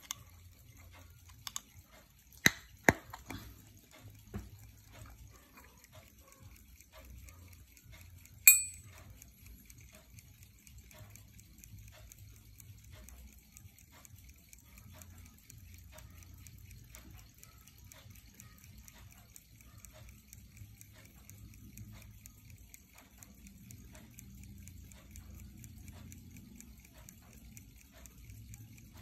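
Caseback of a Westclox Pocket Ben pocket watch being pried with a knife blade: a few sharp metal clicks in the first few seconds and one louder, ringing click about eight seconds in. After that the watch's movement ticks faintly and steadily.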